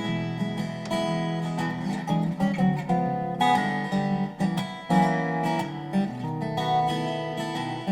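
Background music: strummed acoustic guitar, with notes changing every fraction of a second.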